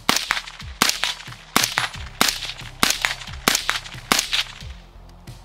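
A suppressed 5.56 AR-15 carbine with an 11.5-inch gas system and a HUXWRX Ventum 7.62 3D-printed titanium suppressor fires about seven semi-automatic shots at a steady pace, roughly one every two-thirds of a second. The reports are not super harsh.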